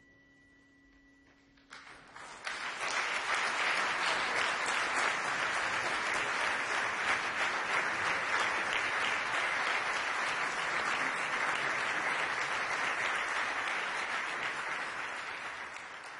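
The last faint ring of a Tibetan singing bowl dies away. About two seconds in, audience applause breaks out, swells quickly, holds steady and begins to fade near the end.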